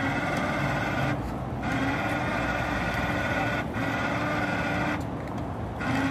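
Electric winch on a tow pickup whining as it pulls a motorcycle up the loading ramp, run in bursts of one to two seconds with short pauses between them.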